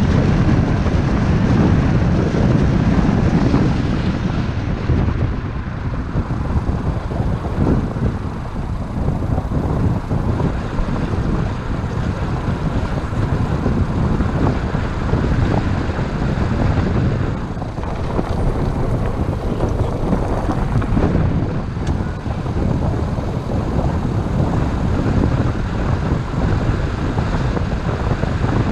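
Car driving at about 30 to 40 km/h on a paved road, heard from a roof-mounted camera: steady road and engine noise with wind rumbling on the microphone, a little louder in the first few seconds.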